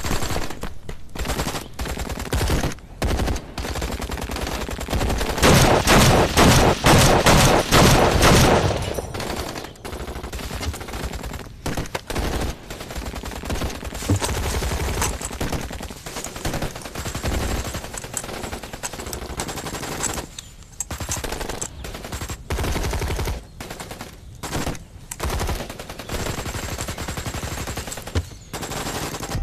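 Battle gunfire: rapid shots in bursts, at their densest and loudest in the middle.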